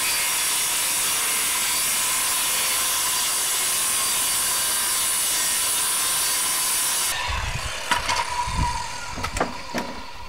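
Corded circular saw ripping a long straight cut through 3/4-inch plywood, running steady and then cutting off abruptly about seven seconds in. A few knocks and rattles follow as the cut-off strip is handled.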